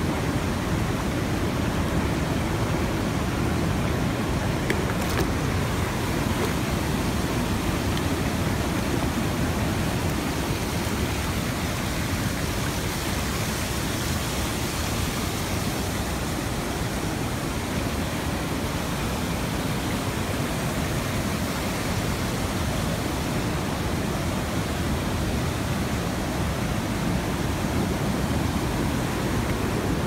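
Fast, swollen river water rushing over and between rock slabs at a waterfall: a steady, full, deep rush of water.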